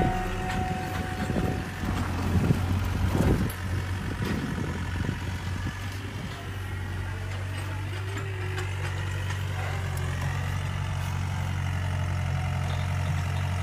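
A motor idling with a steady low hum. Irregular knocks and rustling come over it in the first few seconds.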